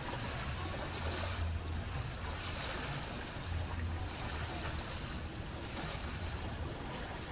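Steady wash of wind and sea water, with a low rumbling drone underneath.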